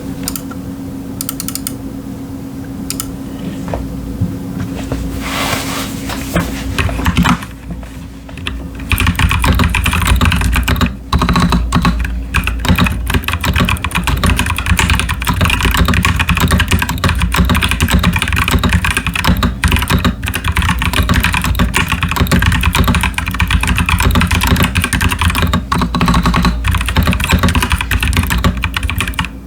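Typing on a Royal Kludge RK61 mechanical keyboard with stock, unlubricated Nightwalker Solaris tactile switches and PBT pudding keycaps. A few scattered keystrokes come first, then steady fast typing from about nine seconds in.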